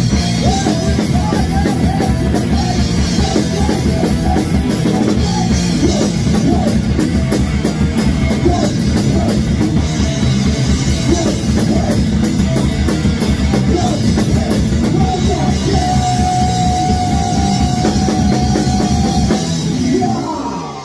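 Thrash metal band playing live, with distorted guitar, bass, drum kit and vocals. A long note is held for a few seconds near the end, and then the song stops just before the close.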